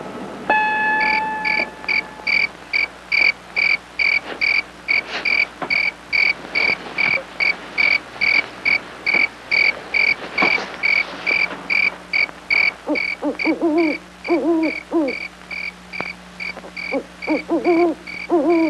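Night-time soundscape: an insect chirping steadily, about two to three short, even chirps a second. From about two-thirds of the way in, short groups of wavering, hoot-like animal calls rise and fall in pitch.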